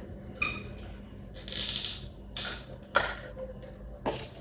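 Handling noise from small paper and plastic lantern parts: a few light clicks and taps, with a short rustle about one and a half seconds in.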